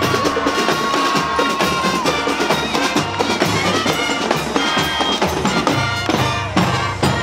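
Marching band playing as it passes: drums beating a steady rhythm under brass horns.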